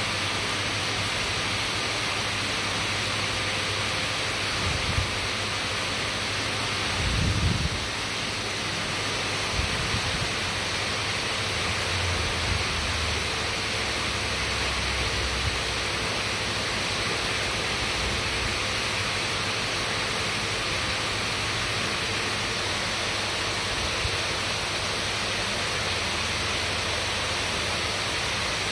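Steady hiss of rushing water, unchanging throughout, with a few brief low bumps in the first half.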